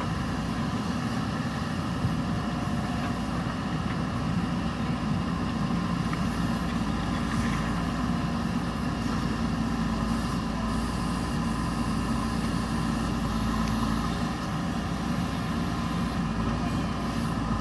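Diesel engine of a JCB backhoe loader running steadily at an even speed.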